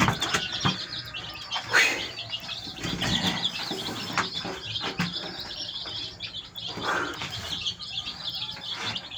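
A brood of young chicks peeping continuously in many overlapping high chirps, with a few short rustling, fluttering noises among them.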